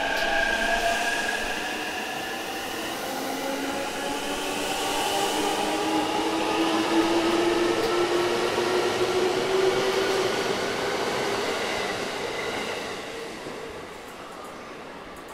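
Stainless electric commuter train in green-and-orange Shonan stripes pulling away, with a motor whine slowly rising in pitch over the running noise. The sound fades out near the end as the last car leaves.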